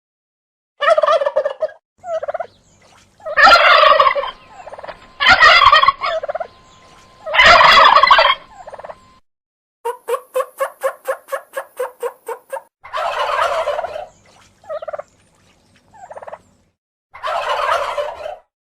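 Male turkeys gobbling: a string of separate loud, rattling gobbles, each about a second long, with shorter calls between them. Partway through comes a quick run of short, evenly spaced calls, about five a second, lasting two to three seconds.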